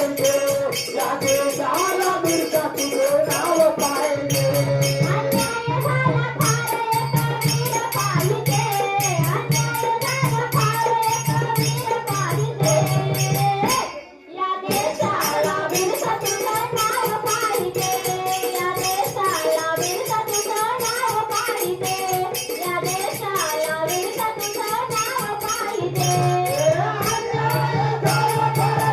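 Marathi devotional folk song: a wavering melody over fast, even jingling percussion like a shaker or tambourine, with a steady low drone in stretches. The music drops out for a moment about halfway through.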